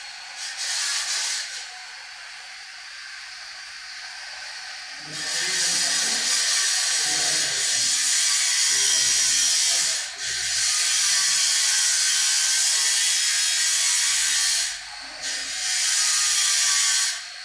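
Steady high-pitched hiss of machine noise in a woodworking shop. It grows louder about five seconds in and drops out briefly twice, with a few soft knocks from handling the work.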